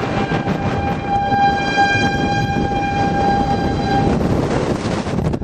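Outdoor tornado warning siren sounding one steady tone over a constant rush of wind noise, the tone ending about four seconds in while the wind noise continues.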